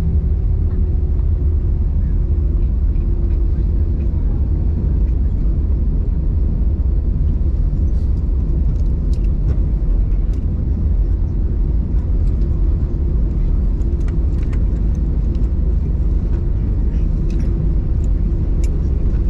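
Cabin noise of an Airbus A320 rolling out after landing, heard from inside the cabin over the wing: a steady, heavy low rumble of the engines and the wheels on the runway and taxiway, with a faint steady hum. Light ticks and rattles from the cabin come and go in the second half.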